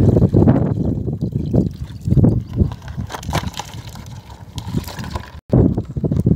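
Shallow pond water sloshing and splashing as a plastic basket is dipped and lifted out, with irregular low knocks and rustles.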